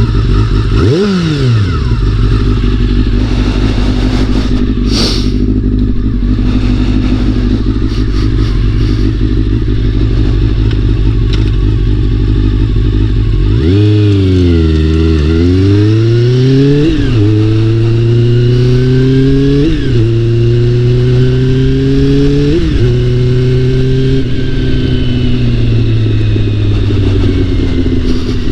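Honda CBR400RR's inline-four engine under way, running steadily at first. From about halfway it pulls up through the gears: the pitch climbs and drops sharply at each of three upshifts, then eases off near the end.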